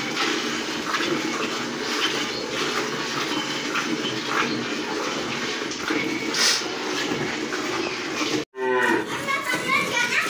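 A cow being milked by hand: rhythmic squirts of milk hitting milk already in a steel bucket, over the steady background noise of a cowshed. The sound cuts out briefly about eight and a half seconds in.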